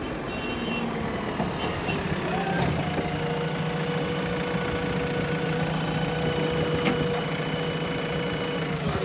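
JCB backhoe loader's diesel engine idling, a steady hum that settles to an even pitch about two and a half seconds in.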